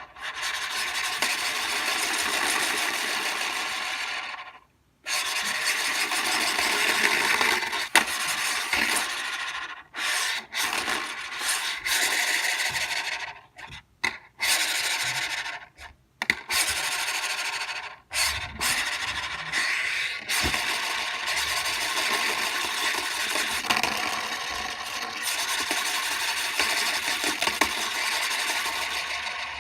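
Messy scribbling on a sheet of paper: a dense, loud scratching, stopping for brief pauses several times, with the longest unbroken run near the end.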